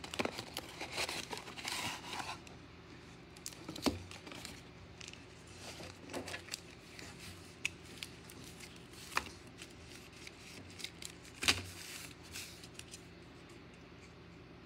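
A shiny trading-card pack wrapper torn open and crinkling for the first couple of seconds, then quieter rustling with a few sharp clicks as the cards are pulled out and handled.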